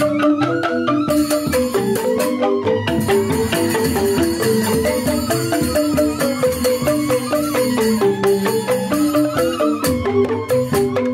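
Balinese joged bumbung gamelan playing continuously: bamboo xylophones (grantang) play a fast, repeating, interlocking melody, driven by kendang barrel-drum strokes.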